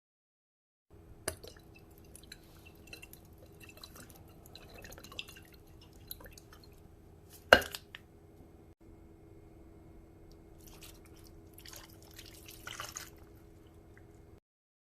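Kitchen food-preparation sounds: liquid dripping and small clinks over a steady low hum, with one sharp knock about halfway through.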